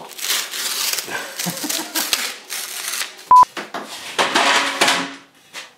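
A short, loud bleep tone about three seconds in, over a stretch of clattering, rustling noise.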